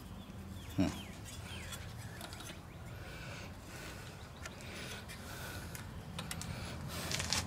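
Quiet handling of the throttle linkage on a 79cc Predator engine's carburetor, engine off: a sharp click about a second in and a few faint small taps.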